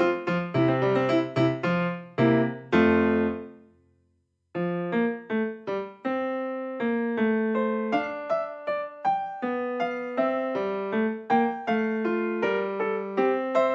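Background piano music of quick, struck notes. It fades out and stops for about a second some four seconds in, then starts up again.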